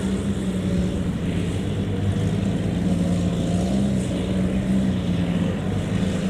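Kubota DC70 combine harvester's diesel engine running steadily, with a slight waver in pitch.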